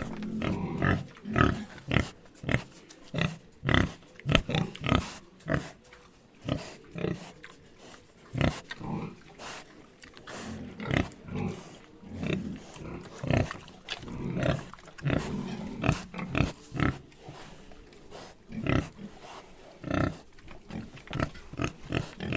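Pigs grunting and snorting in a long irregular run of short, rough grunts, some in quick clusters.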